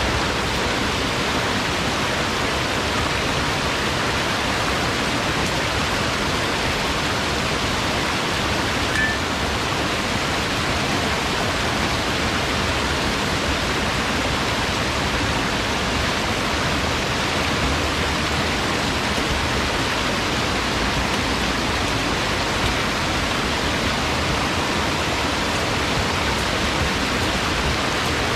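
Shallow, fast river running over rocks: a steady, even rush of water.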